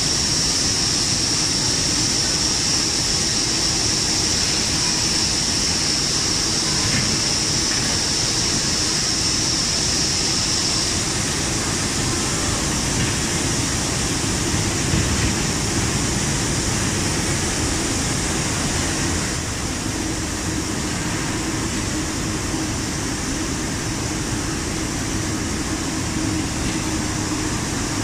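Tubular fabric heat-setting machine running: a steady mechanical rumble with a strong high hiss, which eases about ten seconds in.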